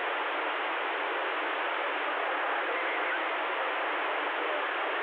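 Steady static hiss from a Stryker CB radio's speaker, open band noise on the 11-meter band with no station transmitting, cut to a narrow radio-voice pitch range.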